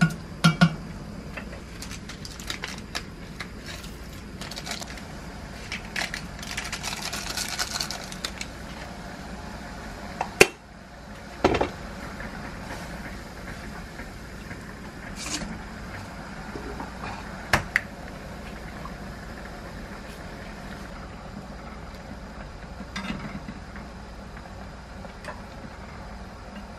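Stovetop cooking: a spoon knocking and scraping against a saucepan and sharp clinks of utensils on pots, scattered through the stretch, over a steady low background of the gas burner and boiling water.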